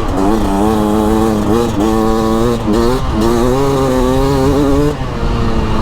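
2024 Beta RR 300's single-cylinder two-stroke engine under riding load, the throttle opened repeatedly. The pitch jumps sharply up about four times, holds or sags a little between jumps, and drops back near the end.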